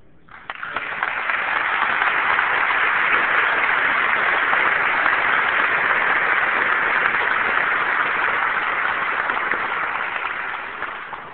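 Audience applauding, starting about half a second in, quickly building to a steady level and dying away near the end.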